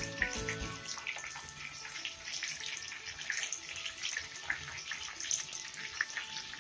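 Potato pieces frying in hot mustard oil in a pan: a steady sizzle full of small crackles and pops. Background music fades out within the first second.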